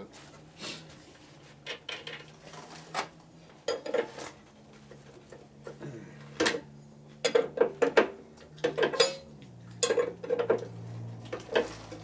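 Hand tools and metal parts clinking and clanking in irregular knocks as a mechanic works at a motorcycle's rear wheel hub, taking the wheel and brake drum apart. The knocks come more often in the second half.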